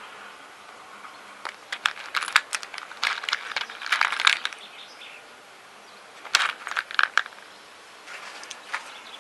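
Electrical cables and small tools being handled: clusters of sharp clicks and rattles from about a second and a half to four and a half seconds in, again around six and a half to seven seconds, and lighter ones near the end.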